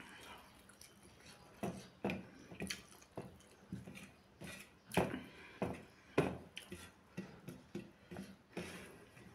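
Fingers mixing and squeezing rice and curry on a steel plate, with irregular close-up wet squishes and smacks, a few a second, and mouth sounds of chewing mixed in.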